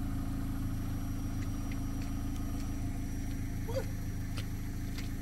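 Pickup truck engine idling steadily, an even low hum with no revving.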